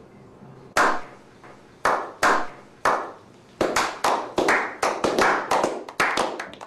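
Hand clapping: single slow claps about a second apart, speeding up into quicker, denser clapping from about halfway, each clap trailing a short echo.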